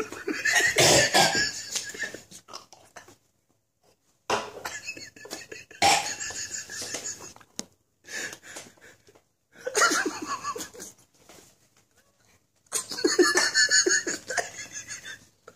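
Fits of coughing mixed with laughter, in about five bursts separated by short silences.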